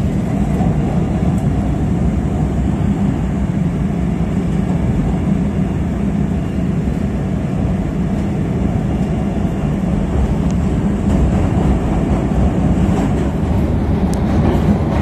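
CTA 5000-series rapid transit car running at speed on the elevated track, heard from inside the car: a steady, deep rumble of the wheels on the rails, with a few light clicks near the end.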